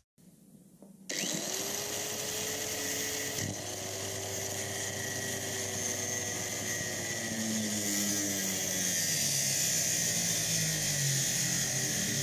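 Corded angle grinder spinning up with a rising whine about a second in, then grinding rusted sheet steel on a Volkswagen T3's lower body. Its pitch sags in the second half as the disc bites into the metal.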